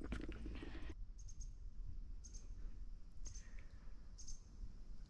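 Short, faint, high chirps from a small animal at dusk, about once a second, over a low rumble, after a brief rustle at the start.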